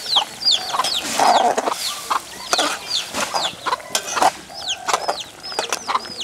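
Chickens clucking, with many short, high, falling chirps throughout. There are also sharp knocks from a metal spatula stirring in an aluminium cooking pot.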